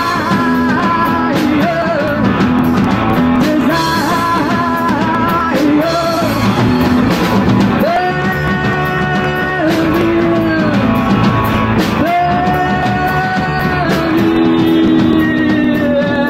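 Live rock band playing: a woman singing over electric guitar, bass and drums, with two long held notes in the second half.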